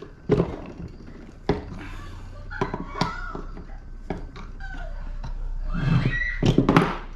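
Sharp metal knocks and clinks from a brass pressure-washer motor being taken apart, with a child yelling in the distance, loudest near the end.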